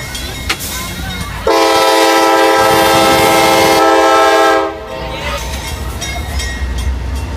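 Diesel freight locomotive's multi-chime air horn sounding one long blast of about three seconds, starting about a second and a half in, as a crossing warning. Around it is the heavy rumble of the passing locomotives and wheels on the rails, which grows deeper after the horn stops.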